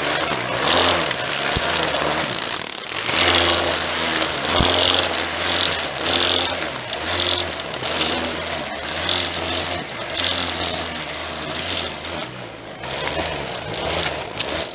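Garden strimmer's motor running in repeated surges of about a second, its speed rising and falling, as a cable tie fitted in place of strimmer line spins and whizzes through grass. The motor is one its owner calls a little ropey.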